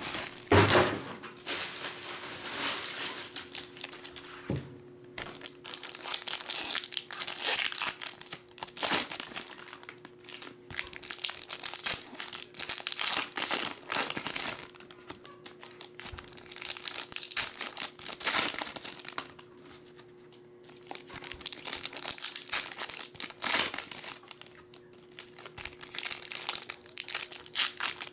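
Foil wrappers of 2010 Bowman Chrome baseball card packs being torn open and crinkled by hand, in irregular bursts of crackling.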